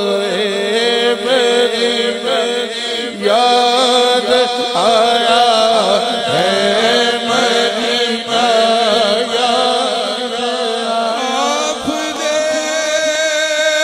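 Male reciters singing an Urdu naat without instruments: a lead voice in long, ornamented phrases over a steady low note held underneath by a second voice.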